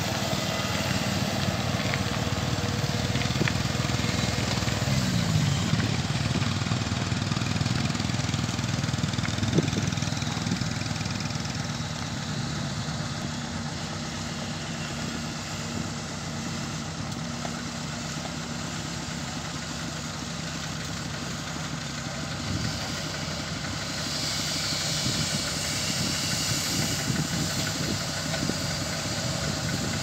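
Kubota DC-70 rice combine harvester's diesel engine running steadily as the crawler machine drives and turns. Its pitch rises briefly about five seconds in.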